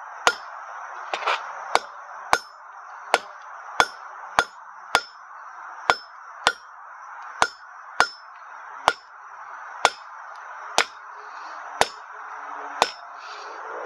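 Hand hammer striking a red-hot half-inch square bar on an anvil, drawing it out to a point: a steady run of ringing blows, about two a second at first and spacing out to about one a second toward the end, over a steady rushing noise.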